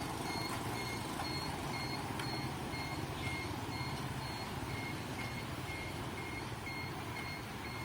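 Level crossing warning bell beeping steadily, about two electronic beeps a second, signalling that a train is approaching, over a steady low rumble.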